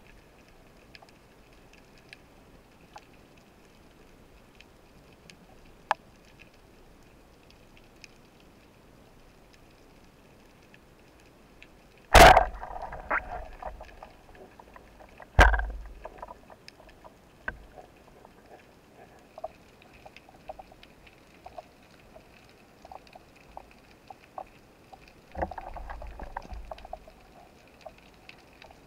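Underwater recording with a faint steady crackle and scattered ticks. Two sharp, loud knocks come about three seconds apart, and a stretch of rushing, sloshing water noise comes near the end.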